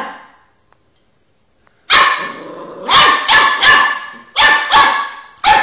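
Beagle barking loudly: after a pause of about two seconds, a run of about seven barks comes in two quick groups.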